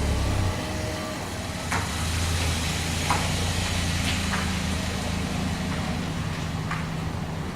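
A vehicle engine running steadily with a low hum, with a few light clicks and knocks over it.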